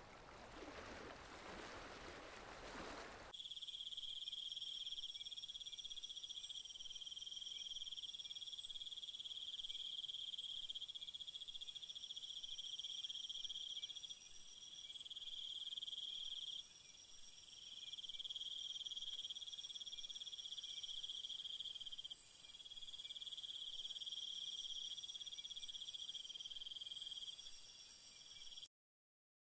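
A rushing noise for the first three seconds gives way to a steady, high-pitched chorus of chirring insects, several layered trills that change every few seconds. It cuts off abruptly just before the end.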